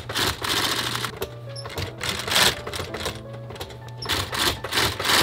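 Myungsung industrial sewing machine stitching a leather boot upper, running in about four short bursts as the work is fed through. Background music plays underneath.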